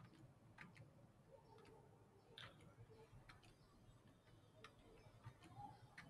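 Near silence: room tone with a few faint, irregular clicks.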